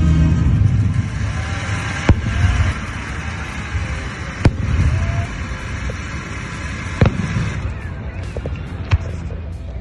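Fireworks going off: four sharp bangs about two to two and a half seconds apart, with a scatter of crackles near the end. Background music fades out in the first few seconds.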